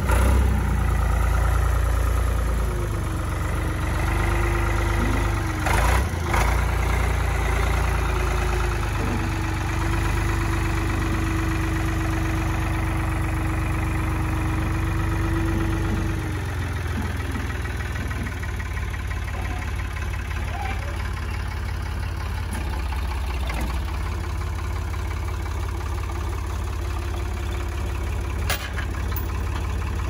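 Ford 555A loader backhoe's 3.3-litre three-cylinder diesel engine running. A steady whine sits over it for roughly the first half, with a couple of knocks about six seconds in. It then settles to a slightly quieter, even idle.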